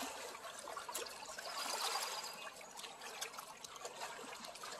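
Small waves lapping and trickling against the lakeshore, a soft, even splashing.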